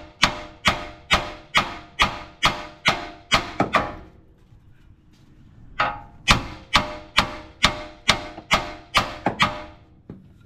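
Steel hammer blows on a Toyota Tundra's front suspension to shock the lower ball joint loose, each strike ringing metallically. A run of about eight quick blows, roughly two a second, a pause of about two seconds, then another run of about eight.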